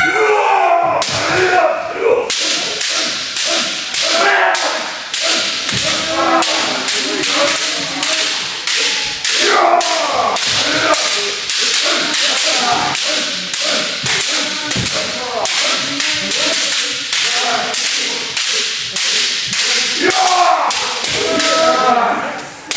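Kendo sparring by several pairs at once: bamboo shinai crack against armour and against each other, and feet stamp on a wooden floor, about two sharp impacts a second. Shouted kiai run among the strikes.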